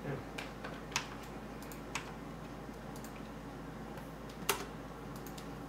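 Sparse, irregular light clicks and taps, about eight of them, the loudest about four and a half seconds in, over a quiet room hum.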